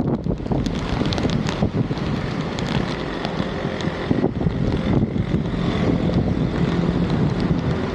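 Wind buffeting the microphone over a steady rushing noise, with a few faint clicks.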